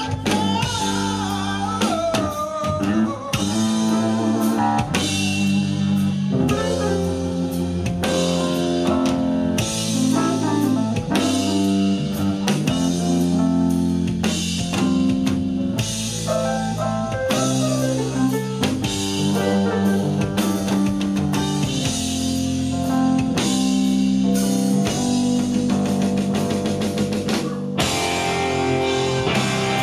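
Live rock band playing an instrumental passage: electric guitar lead with bent, sustained notes over a drum kit and bass guitar.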